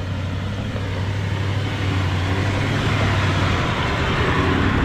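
Toyota Land Cruiser 76's V8 turbo-diesel engine pulling the wagon up a steep dirt climb, steady in pitch and growing louder as it approaches.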